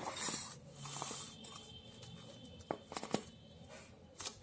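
Plastic shrink-wrap rustling as stacked opalware dinner plates are handled and set down, with a few light clicks of the plates knocking together.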